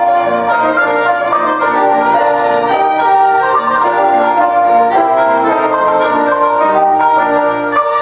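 Small chamber ensemble of violin, clarinet, trombone, piano and percussion playing silent-film music, with busy overlapping melodic lines and no break.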